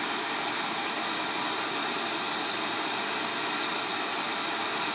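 Hot-air rework heat gun blowing steadily on high, an even rushing hiss, while it heats a phone's charger port to melt the solder.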